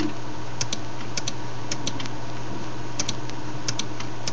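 Clicking at a computer while working through a program's menus: a few short, sharp clicks, mostly in quick pairs, at irregular intervals. A steady low hum runs underneath.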